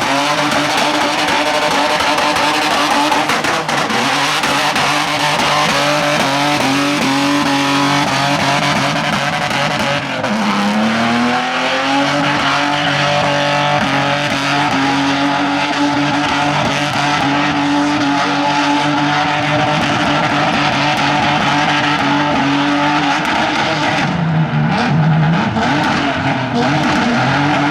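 Car engine held at high, steady revs while the tyres squeal in a long skid, as in a drift display. About ten seconds in the revs drop briefly and climb back up.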